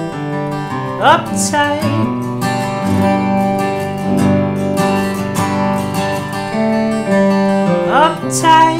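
Acoustic guitar strummed together with an electric guitar, and a male voice singing a drawn-out, upward-sliding 'uptight' about a second in and again near the end.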